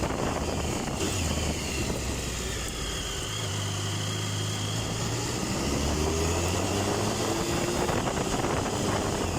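Triumph Tiger 1050's three-cylinder engine running under way at moderate revs, its note rising steadily as the bike accelerates in the second half.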